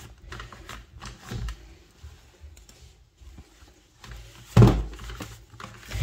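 A dry microfibre cloth wiping the plastic cyclone housing of a Dyson V15 cordless vacuum: soft rubbing and small plastic handling knocks, with one louder thump a little past the middle.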